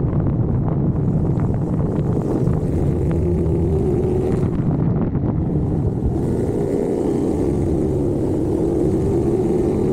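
Motorcycle engine running steadily while the bike is ridden at road speed, its pitch wavering slightly, with wind rushing over the bike-mounted microphone.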